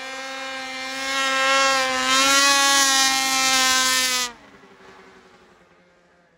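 Ski-Doo 600RS race snowmobile's two-stroke engine running hard at high revs, very loud and steady, its pitch dipping a little as it passes. After about four seconds it drops away sharply to a faint drone that fades as the sled moves off.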